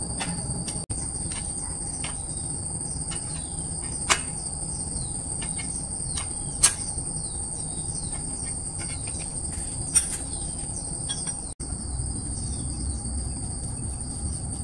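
A steady high insect chorus with two constant whining tones. Over it come scattered sharp metallic clicks and clinks from a wrench working the axle nut of a bicycle's rear wheel, the loudest about 4, 6.5 and 10 seconds in.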